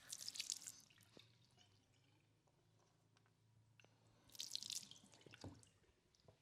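Liquid trickling or dripping in two short, faint bursts about four seconds apart, with a few small clicks, as the massage oil is prepared.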